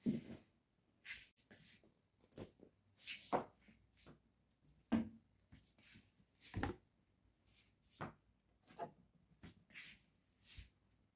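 Faint handling noises of items being set down on a bed: a dozen or so soft thumps and rustles at irregular intervals, among them a handbag and a plastic lotion bottle.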